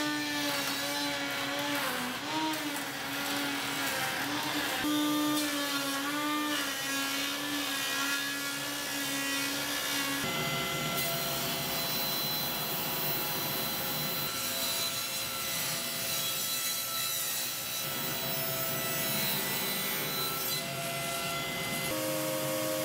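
Power tools cutting oak moulding. First a router on a router table runs, its motor whine dipping and wavering in pitch as the wood loads the bit. About ten seconds in the sound changes to a table saw's steadier whine as it cuts the strip, and near the end the router sound returns.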